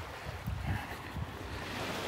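Small Gulf of Mexico waves lapping and washing up a sandy beach, with breeze rumbling in gusts on the microphone.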